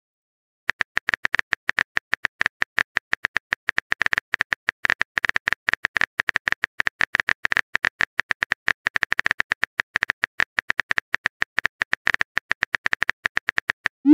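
Phone keyboard typing clicks from a texting-story app, a fast, steady run of short ticks, several a second, as a message is typed out. They start about a second in.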